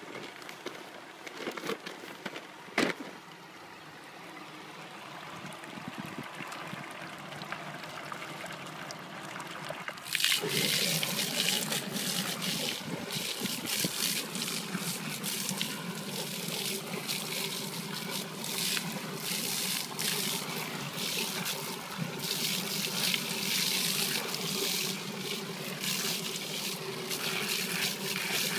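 Recirculating hose of a Ready To Go calf-milk mixer, driven by its submersible pump, spraying water onto dry calf milk powder in the tank to wet it. The water starts abruptly about ten seconds in as a steady hiss with a low hum under it. Before that there is only quieter handling of the powder bag, with one sharp knock about three seconds in.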